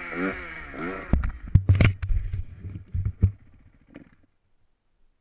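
Dirt bike engine revving up and down, picked up by a camera mounted on the bike. From about a second in come several heavy thumps and knocks over the engine. The sound fades out about four seconds in, leaving near silence.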